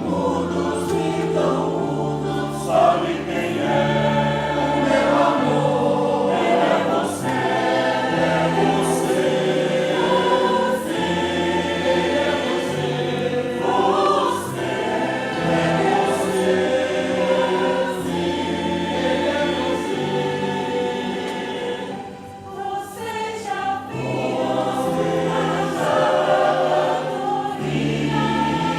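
Choir singing in parts with piano accompaniment, with a short lull about three quarters of the way through.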